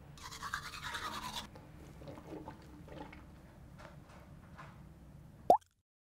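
Toothbrushing sounds: about a second of loud scratchy bristle scrubbing near the start, then faint scratchy ticks while teeth are flossed. Near the end comes a short loud sound effect rising in pitch, which cuts off sharply.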